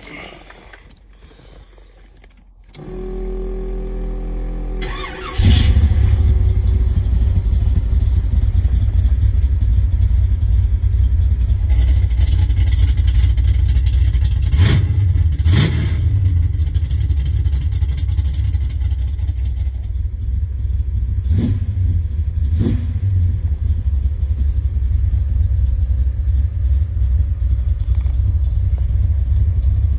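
1966 Chevrolet Bel Air wagon's big-block V8 being started: the starter cranks for about two seconds, the engine catches about five seconds in and settles into a loud, steady idle, with a few short sharper sounds over it later on.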